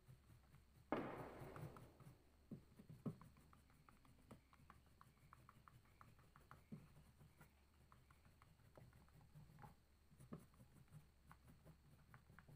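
Faint scratching of a dark green crayon on paper in many short, quick strokes, with a louder rustle lasting about a second near the start.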